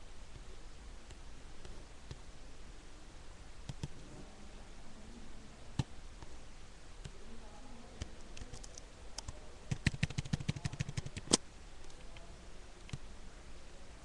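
A few scattered clicks, then a quick run of about a dozen clicks near the end, the last one the loudest.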